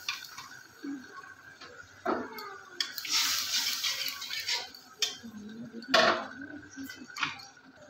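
A metal ladle stirring watery masala gravy in a metal kadai, with a swishing stretch near the middle and several sharp clinks and knocks of the ladle against the pan, the loudest about six seconds in.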